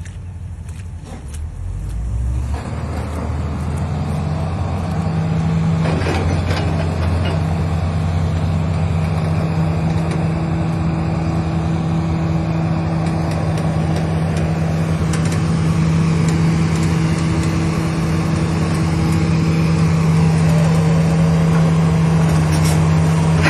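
An engine running steadily with a low hum; about two and a half seconds in it picks up and gets louder, then holds steady.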